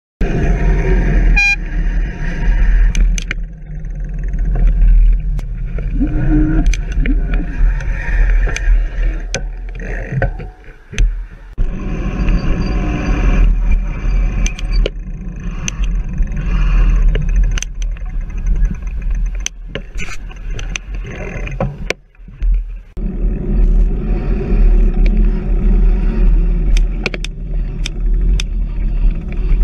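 Wind buffeting the microphone of a bicycle-mounted camera while riding, mixed with passing car traffic, with occasional sharp clicks. The sound drops out briefly twice.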